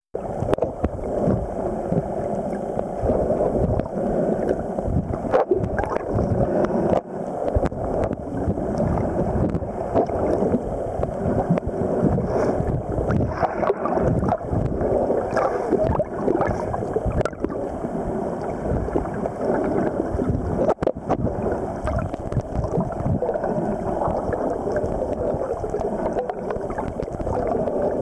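Muffled underwater noise picked up by a camera in a waterproof housing: steady water rush and bubbling, with scattered small clicks and knocks.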